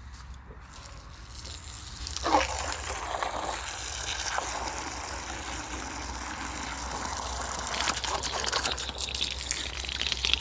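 Water pouring in a steady gush, swelling about two seconds in, which would soak and soften hard ground around the light stakes.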